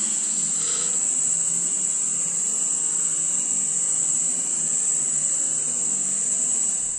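Insect chorus: a steady, loud, high-pitched drone.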